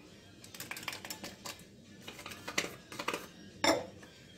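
Small plastic yogurt cup being handled over a bowl: a run of light, irregular clicks and taps, with a louder knock near the end.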